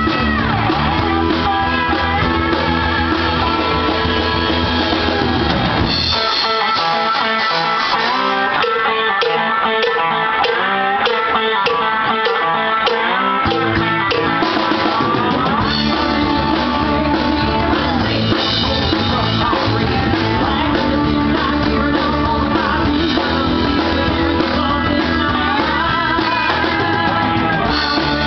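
Live rock band playing, with electric and acoustic guitars, drum kit and vocals. About six seconds in, the bass and drums drop out for a stretch, leaving guitars and voice. The full band comes back in about seven seconds later.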